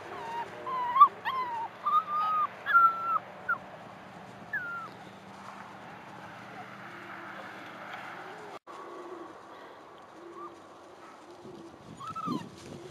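Braque du Bourbonnais puppies yelping and whining in a quick string of short, high calls that bend up and down over the first few seconds. Softer, lower whimpers follow, and one more yelp comes near the end.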